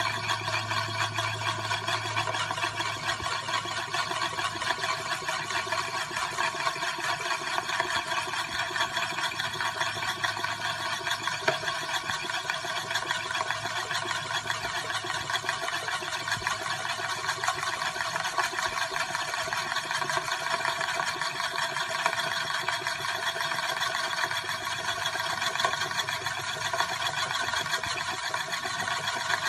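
Euler's disk spinning and rolling on its edge on its mirrored base, making a steady, rapid whirring rattle.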